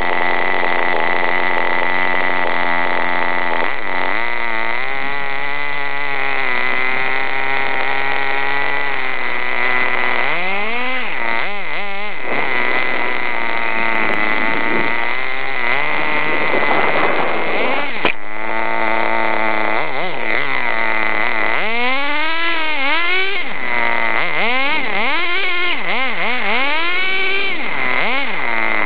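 Small .18 CXP nitro engine of a 1/10-scale RC car running and revving up and down as the car is driven, with quick repeated revs about ten seconds in and again through the second half. A steady high tone runs underneath.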